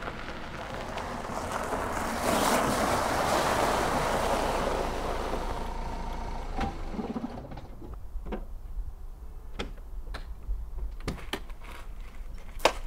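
A car pulling in slowly over a gravel drive, engine and tyre noise swelling then dying away about seven seconds in. Then a scattering of sharp clicks and knocks.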